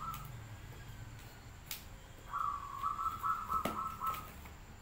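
Hands handling and opening a cardboard parcel, with a couple of sharp clicks of the packaging. Over it a bird gives a broken run of harsh calls for about two seconds in the middle.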